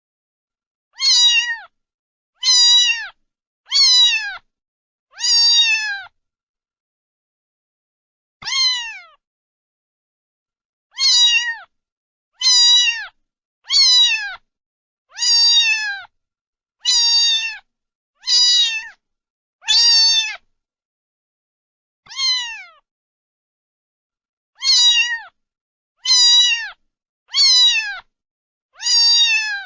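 A domestic cat meowing over and over: about seventeen short, high meows, each dropping in pitch at the end, mostly one to two seconds apart with a few longer pauses.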